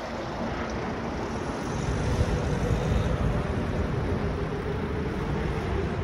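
Steady low rumble of wind on the microphone and nearby road traffic, with a faint steady hum coming in about halfway through.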